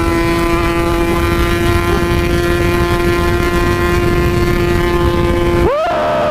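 Yamaha RX King's single-cylinder two-stroke engine, fitted with an aftermarket PK 3 expansion exhaust, running at steady high revs under riding, with wind rumble on the microphone. Near the end the revs rise sharply and hold at a higher pitch.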